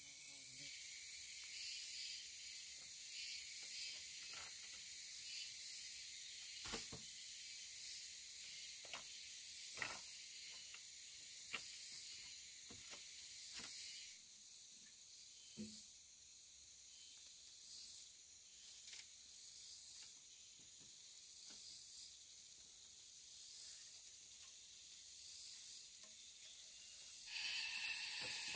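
Forest insects droning high and steady, pulsing about once a second, with scattered light knocks of bamboo poles being handled.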